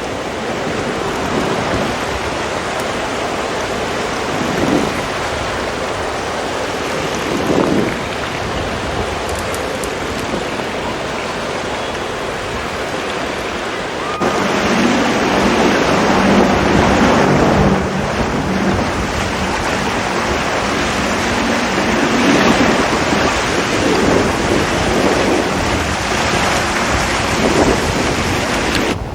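Ocean surf: a steady rush of waves breaking on a beach, swelling about five and eight seconds in. About halfway through it changes abruptly to a louder, closer wash of surf with a faint low steady hum under it.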